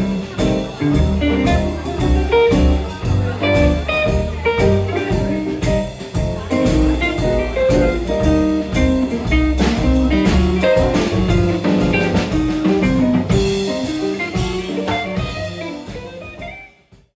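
Live jazz band playing an instrumental stretch: guitar to the fore over walking bass, piano and drums. The music cuts off abruptly about a second before the end.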